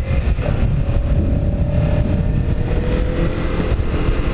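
Kawasaki Ninja 300's parallel-twin engine running steadily on the road under heavy wind rumble, its note sinking slowly as the bike eases off.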